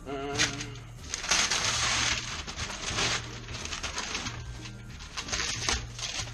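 Wrapping paper tearing and rustling as a wrapped gift box is cut open, in several bursts; the longest tear comes just after a second in. A short wavering high call or whine sounds at the very start.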